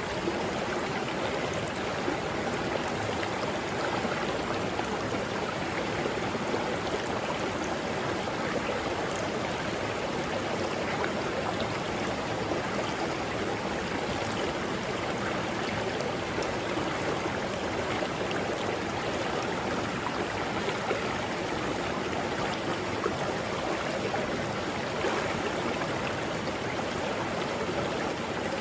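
Mountain river running: a steady, even rush of water.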